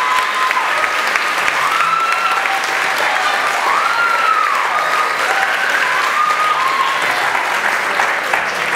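Audience applauding after a dance, with high whoops and cheers rising and falling over the clapping.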